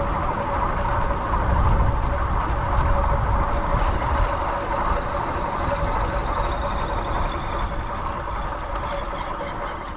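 Steady vehicle noise, a continuous rumble with a held hum and a faint high whine in it.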